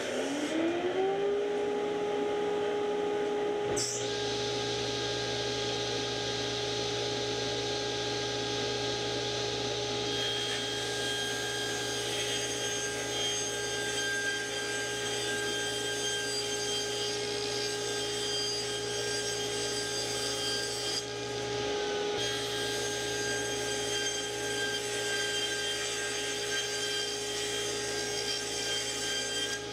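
Shop dust collector switched on by remote, its motor spinning up with a rising whine to a steady hum. A few seconds in a table saw starts, and both run steadily while 3/4-inch plywood is ripped to width on the saw.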